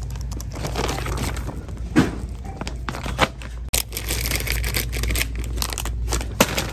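Plastic packaging crinkling and rustling as a gift bag and a bag of gummy candy are handled over a wire shopping cart. Scattered clicks and knocks sound over a steady low hum.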